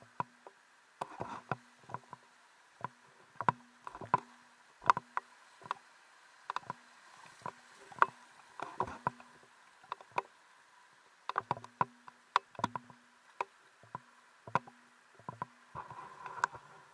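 Footsteps of someone wading up a shallow rocky stream: irregular sharp knocks and clacks of boots striking stones, with small splashes, over a faint trickle of flowing water.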